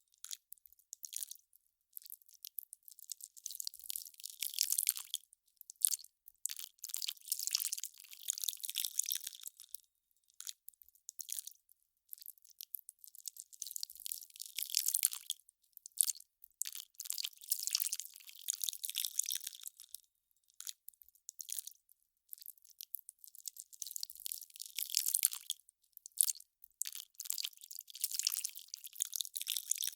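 Melting ice crackling: irregular clusters of crisp, high crackles, each a second or two long, with short gaps between.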